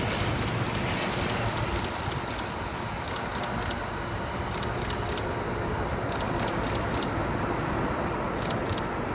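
Distant Boeing 787-9 jet rumbling as it rolls out and slows on the runway after landing, the engine noise easing slightly. Quick runs of faint high clicks come and go over it.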